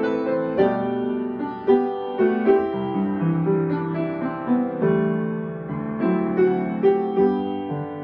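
Background piano music, notes and chords struck one after another at an easy pace.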